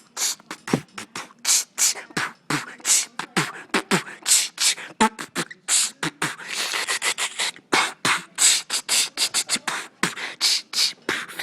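A man beatboxing a steady beat: a quick run of short, hissy percussive mouth sounds at about three a second.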